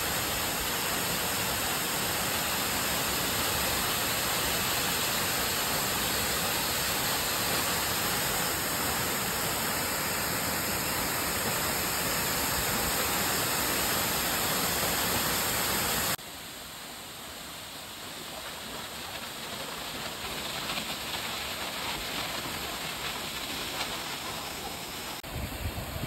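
Waterfall pouring into its plunge pool: a steady, even rush of falling water. About sixteen seconds in it drops off suddenly to a quieter rush of flowing water.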